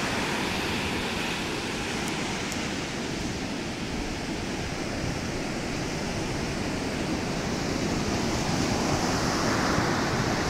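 Ocean surf breaking and washing up the shore: a steady roar of waves, growing a little louder near the end.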